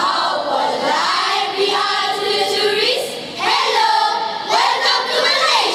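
A school choral speaking group of children performing in unison, mostly sung, with two long held notes about two and about four seconds in.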